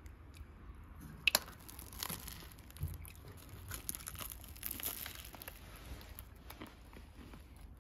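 Faint rustling and crinkling with scattered small clicks, the sharpest about a second in.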